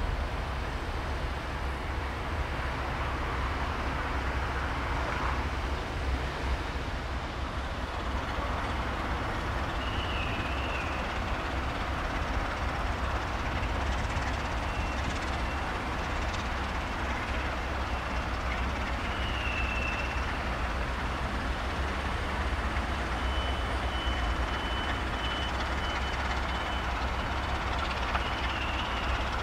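Diesel trains idling and moving slowly at a station: a steady low engine rumble, with a few faint, brief high squeals from time to time.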